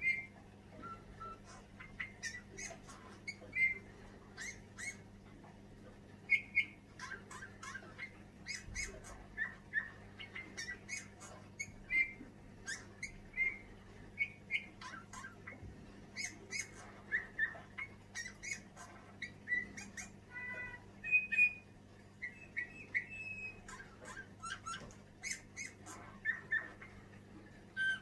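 Male Eurasian bullfinch singing its quiet song: soft short whistled notes mixed with scratchy, clicking notes, in an irregular run throughout.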